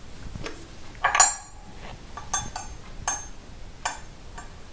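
Metallic clicks and clinks of a lathe chuck being tightened with its chuck key onto a brass rod: one louder ringing clink about a second in, then a run of lighter clicks.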